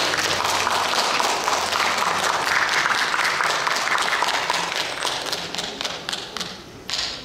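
Audience applauding, many hands clapping at once, at the end of a dance number; it grows quieter in the last couple of seconds and fades out.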